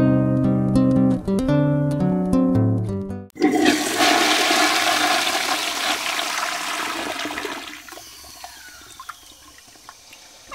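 Acoustic guitar music stops abruptly about three seconds in, and a toilet flushes: a loud rush of water that slowly fades away.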